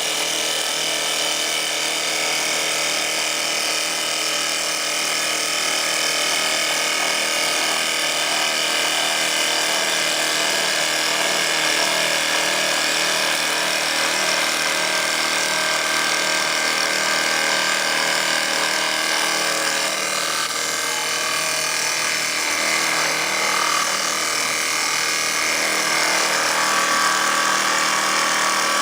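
CNC wood lathe running and turning a wooden workpiece: a steady machine sound with several held tones over cutting noise, the tones shifting about two-thirds of the way through.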